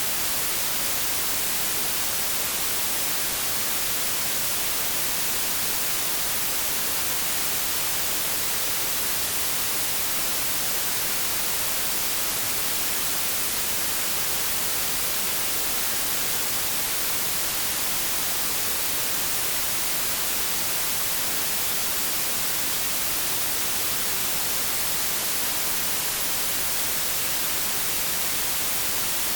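Steady white noise: an even, unchanging hiss spread across the whole range, brightest in the high end.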